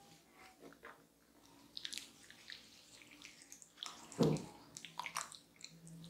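Hands sliding and pressing over skin slick with passion fruit pulp and seeds, giving soft wet smacks and small sticky clicks, with one louder soft sound about four seconds in.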